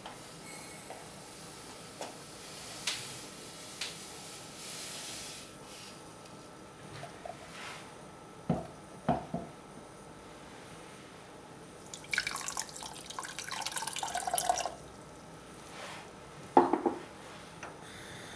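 Ingredients going into a non-stick saucepan. First a soft hiss as granulated sugar is poured in, then a few light knocks. About two-thirds of the way through, water is poured over the sugar for a couple of seconds, followed by one sharp knock near the end.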